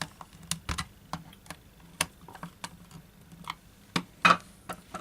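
Scattered small clicks and ticks from a screwdriver and screws as the screws are driven into a cordless drill's plastic housing halves, with a louder pair of clicks about four seconds in.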